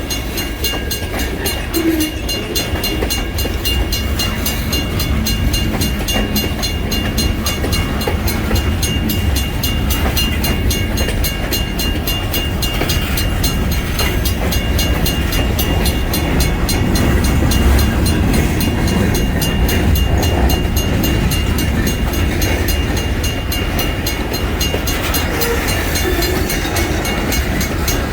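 Freight train rolling steadily through a grade crossing, with a constant heavy rumble of wheels on rails. A crossing bell rings in quick repeated strokes over it.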